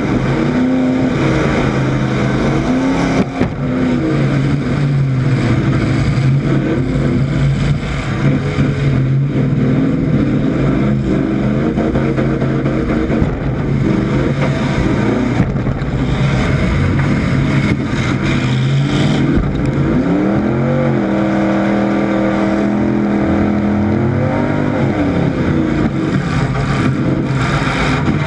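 Demolition derby truck's engine, heard from inside its stripped cab, running hard and revving up and down as it drives. About twenty seconds in it revs up, holds a steady high pitch for a few seconds, then drops back.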